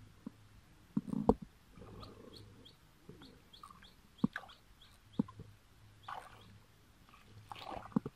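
Hands squelching and splashing in shallow muddy water while groping for fish, with a few sharp slaps. Water sloshes near the end as feet wade through it, and a small bird chirps repeatedly in the background.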